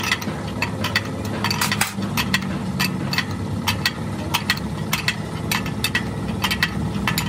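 Repeated sharp metallic clicks and clinks of a large open-end spanner turning the nut on a threaded compressing tool set in a truck clutch pressure plate, about two or three a second at an uneven pace, over a steady low hum.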